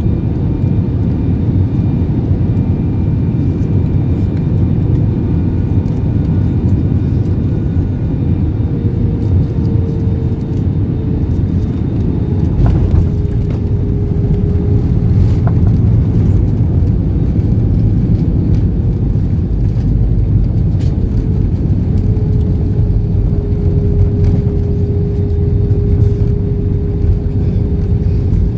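Cabin noise of an Airbus A320 over the wing on final approach and landing: a steady, loud roar of engines and rushing air. A humming tone comes and goes in the second half, and by the end the ground spoilers are up after touchdown.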